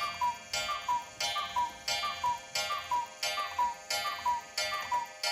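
Wall cuckoo clock calling "cuckoo" over and over, each call a falling two-note tone with a click at its start, about one every three-quarters of a second. The cuckoo has just been switched back on after being on silent, and it calls a lot of times in a row.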